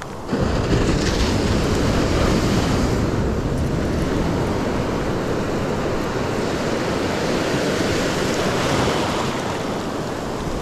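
Shallow surf washing in around the feet, a wave surging in just after the start and the wash running on steadily, with wind buffeting the microphone.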